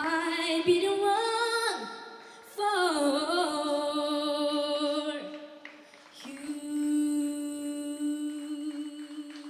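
A female solo voice singing unaccompanied long held notes at the close of a song: a short phrase, then a falling glide, then one long held note.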